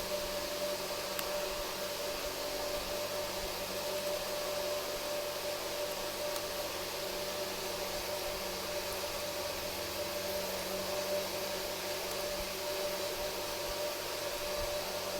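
A steady hum with hiss from a running motor or fan, unchanging, with a faint tick about a second in.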